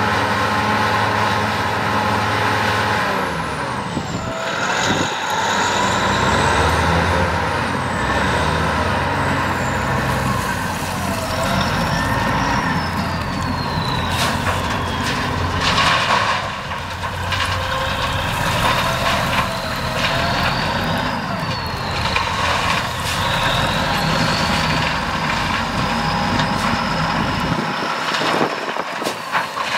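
Clark Michigan 475B wheel loader running under load: its big diesel engine runs steadily while a high whine rises and falls as the bucket is raised and tipped. About halfway through comes a loud rush, as rock pours from the bucket into the dump truck's steel bed.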